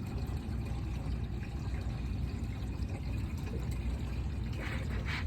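Water sloshing and lapping against the hull of a small boat, over a steady low rumble.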